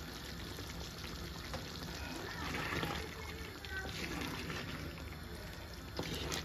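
A thick coconut-milk curry simmering in a clay pot on a gas burner, a steady bubbling hiss. From partway through, a wooden spoon stirs it, with a few light knocks against the pot near the end.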